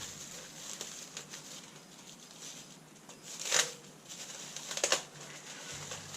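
Packing material crinkling and rustling as a part is dug out of its shipping box, with two louder crackles about three and a half and five seconds in.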